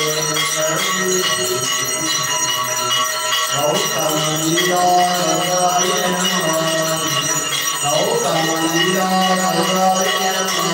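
Temple bells ringing continuously for a Hindu evening aarti, with a steady low hum and devotional singing that swells in and out.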